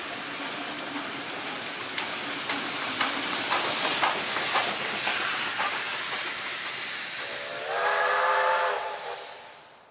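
Steam train running past and away: steam hiss with clicks from the wheels on the rails. Near the end a steam locomotive whistle sounds one chord-like blast of about a second and a half, and then the sound fades out.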